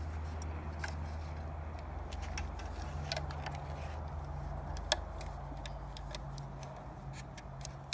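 Steel rebar tie wire being wound by hand around screws, giving light scattered clicks and ticks with one sharper click about five seconds in, over a steady low background hum.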